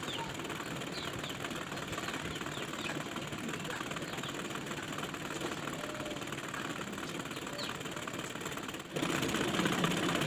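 Domestic sewing machine running steadily, its needle stitching rapidly for free-motion embroidery; it gets louder about nine seconds in.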